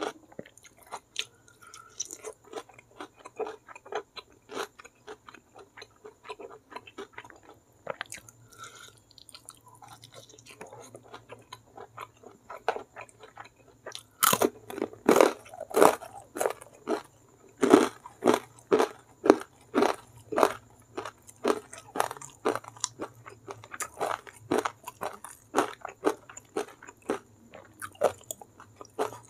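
A person chewing and crunching food with the mouth open to a close microphone: a steady run of crisp crunches and wet chewing. The crunches grow louder and come about twice a second from about halfway through.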